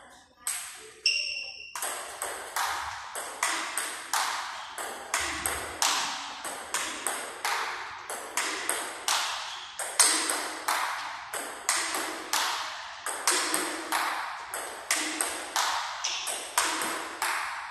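Table tennis rally: the plastic ball clicks off rubber paddles and bounces on the table about two to three times a second, each hit ringing briefly in the hall. There is a short break just after the start before the steady back-and-forth picks up.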